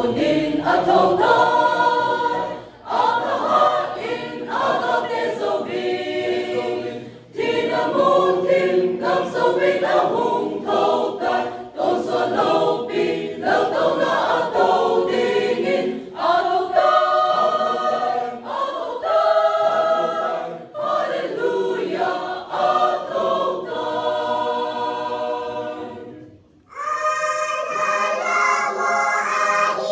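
Church choir of young women and men singing a hymn together, line by line, with brief breaths between phrases.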